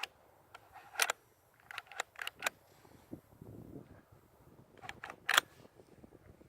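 Sharp metallic clicks and clacks from handling a Weatherby SA-08 12-gauge semi-auto shotgun with a broken bolt: one click about a second in, a quick run of four around two seconds in, and two more near the end, the last the loudest.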